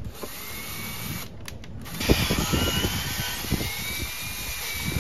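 Cordless drill running as it bores out paint-filled screw holes in painted plywood, a steady motor whine with a short break about one and a half seconds in and louder again from about two seconds.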